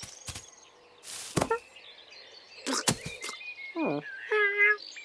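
Cartoon cat sounds: a few soft thumps and a rustle as the cat gets down from the hay bale, then a falling meow-like cat call near four seconds and a short steady cat call just after. Faint high insect or bird chirps run underneath.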